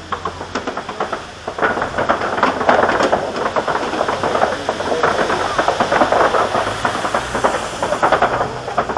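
Open-sided safari ride truck rattling and clattering loudly as it drives on. A dense jumble of knocks and rattles grows louder about a second and a half in and holds nearly to the end.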